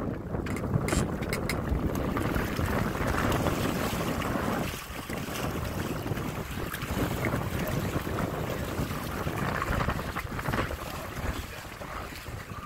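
Wind buffeting the microphone over water rushing along the hulls of a Windrider 17 trimaran under sail, a rushing noise that swells and eases.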